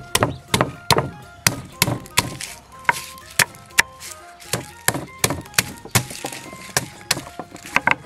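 An oblong stone bashing ginger and garlic against a thick wooden chopping block: repeated sharp thuds, about two to three a second, with a brief pause about halfway through as it moves from the ginger to the garlic bulbs.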